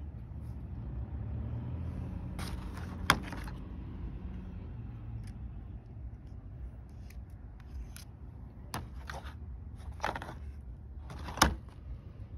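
Car wiper blades and their plastic mounts being handled: rustling and scraping with a few sharp plastic clicks, the two loudest about three seconds in and near the end, over a steady low rumble.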